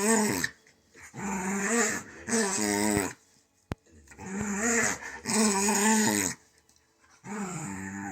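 A dog vocalizing in a string of about six drawn-out, wavering moan-like calls, each lasting around a second, separated by short pauses, with a single sharp click a little past the middle.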